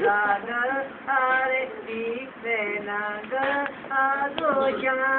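A high voice singing a melody in short phrases, with held, wavering notes.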